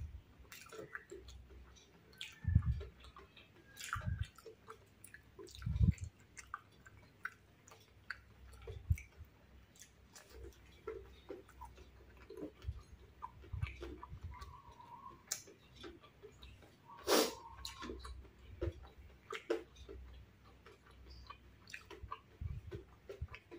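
Close-up eating of crispy fried tofu meatballs with rice: wet chewing with many short crunchy clicks and crackles. A few low thumps come in the first six seconds, and one sharp loud crunch comes about two-thirds of the way through.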